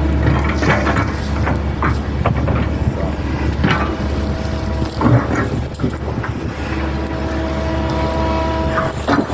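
Hitachi hydraulic excavator's diesel engine running steadily, with a hydraulic whine that comes and goes and several sharp knocks and clanks of the working machine.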